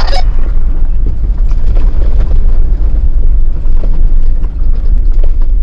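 Strong wind buffeting the microphone: a deep, gusty rumble whose loudness jumps about unevenly.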